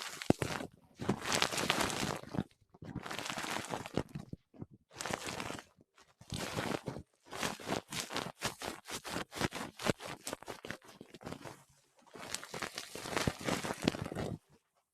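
Crinkly rustling in repeated bursts of one to two seconds, with short pauses between them, full of fine crackles.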